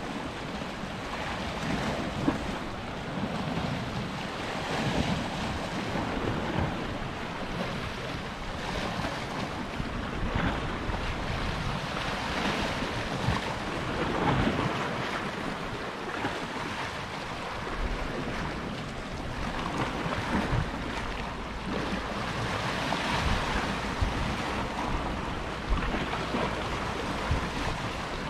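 Sea waves washing against shoreline rocks: a steady rushing that swells and eases every several seconds. Wind gusts on the microphone add low rumbles.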